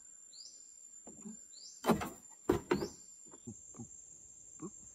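Three or four sharp knocks around the middle, from a knife blade working against a wooden stick and the ground, over short falling bird chirps and a steady high insect drone.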